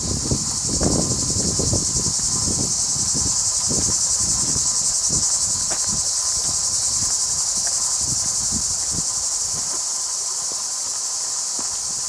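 A steady, high-pitched buzzing chorus of insects, with irregular low thuds of footsteps on the path underneath.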